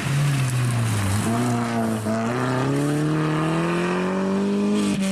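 Opel Corsa OPC rally car's turbocharged engine under hard acceleration, its revs dipping briefly about one and two seconds in, then climbing steadily.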